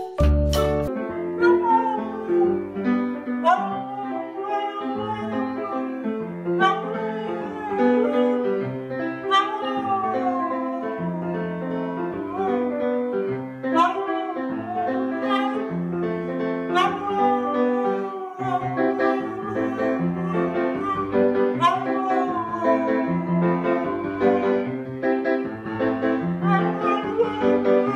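Piano played in slow sustained chords while a husky howls along, its long wavering howls gliding up and down over the notes, one after another every few seconds.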